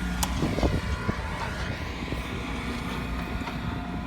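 Bobcat S205 skid steer's 66 hp Kubota diesel running steadily at idle.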